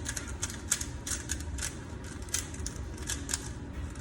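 Plastic Rubik's cube being twisted by hand, its layers clicking in quick, irregular runs as it is scrambled.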